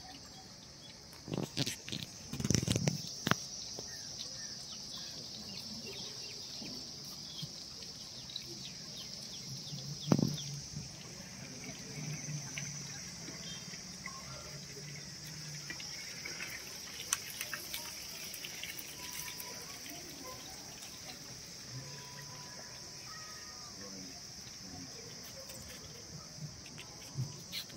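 A steady high-pitched insect drone runs under faint chatter. A few sharp clattering knocks come about two to three seconds in, and a single louder knock about ten seconds in.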